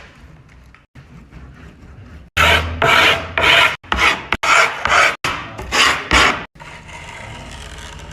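Rasping strokes of a tool filing along the griptape edge of a new skateboard deck: fainter rubbing at first, then a run of loud quick strokes, about two a second, from about two seconds in to about six seconds in.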